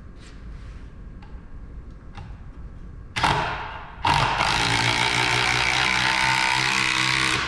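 Cordless screw gun with a socket driving a lag screw into wood: a short burst of the motor about three seconds in, then a steady run of about three seconds that stops as the screw is drawn snug.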